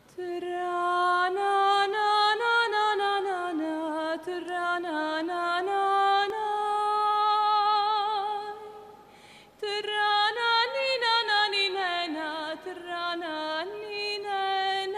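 A solo female voice sings an ornamented, unaccompanied Dalmatian klapa-style melody with sliding pitches and vibrato. It breaks off briefly about nine seconds in, then carries on.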